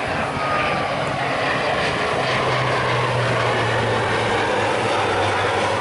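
Four-engine turboprop military transport of the C-130 Hercules type flying past low overhead: a loud, steady propeller drone whose low hum drops in pitch as the plane passes.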